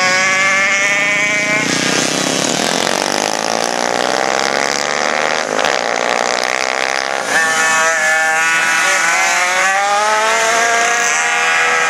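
Several pocket bikes' small two-stroke engines buzzing at high revs as they race past, their pitch climbing under throttle and dropping off for the corners; a louder bike comes close about seven seconds in, revving up again.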